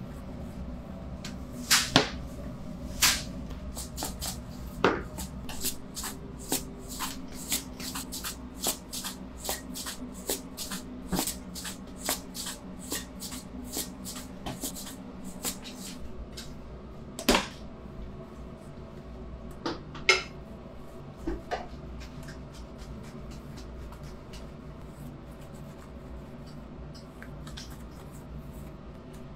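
Hand work at a bakery table as shaped rounds of bread dough are brushed with glaze and topped with sesame seeds. Irregular sharp clicks and taps come one or two a second for about the first half, with a few louder ones later, over a steady low hum.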